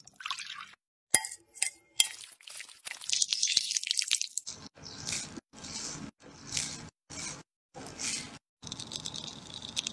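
Kitchen mixing sounds in short, abruptly cut snippets: batter being stirred and folded with a spatula in a glass bowl, with light clinks against the glass.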